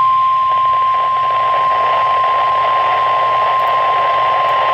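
NOAA Weather Radio 1050 Hz warning alarm tone: a single steady beep over a hiss of radio static, signalling that a warning message is about to be broadcast.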